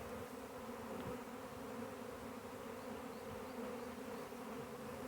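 Swarm of honey bees buzzing in flight: a steady, unbroken hum.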